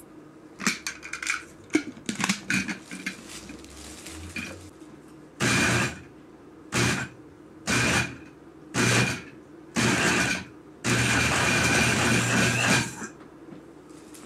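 Countertop blender run in five short pulses, then for about two seconds without stopping, chopping peeled ponkan orange segments with their membranes into a pulpy juice. Before it, a string of clinks and knocks as the blender jar is handled and set on its base.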